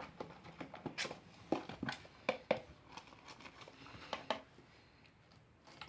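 Glue-and-borax slime being stirred with a utensil in a bowl: irregular short sticky clicks and scrapes, most of them between about one and four and a half seconds in.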